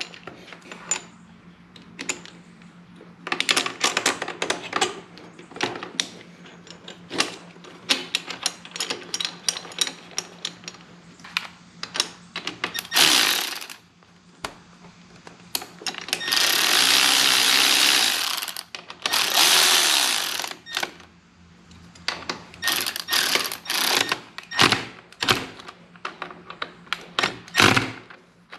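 Milwaukee cordless ratchet running in short runs, about two seconds each, to drive in the front brake caliper bolts. Many small clicks and clinks of tools and bolts being handled come before and after the runs.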